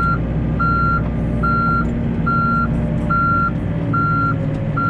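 Backhoe backing up: its reverse alarm beeps steadily, a single-pitch beep a little over once a second, over the steady drone of the diesel engine running.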